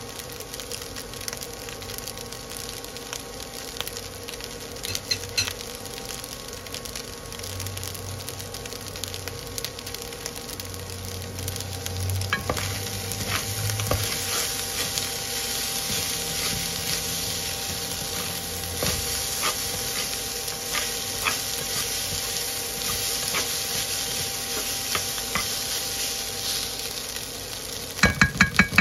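Fried rice sizzling in a granite-coated nonstick pan while a spatula stirs and scrapes through it. Near the end a quick run of about five sharp knocks.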